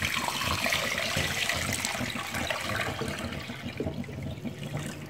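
Water being poured into a metal cooking pot of chicken pieces: a steady splashing, filling stream that tapers off near the end.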